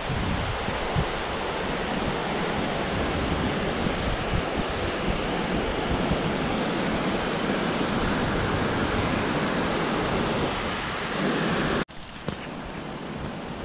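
Steady rushing of river water pouring over a weir, with wind on the microphone; it breaks off suddenly near the end, leaving a quieter outdoor hush.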